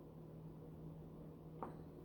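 Faint steady hum in a quiet room, with one small sharp click of crimping pliers on a metal crimp cover near the end.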